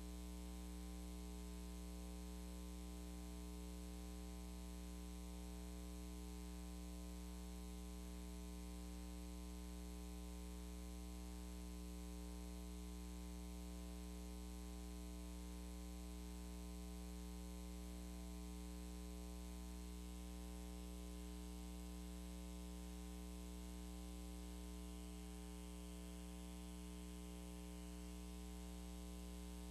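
Steady low electrical hum with a faint hiss over it, unchanging throughout: idle noise of the church's audio feed with nothing playing.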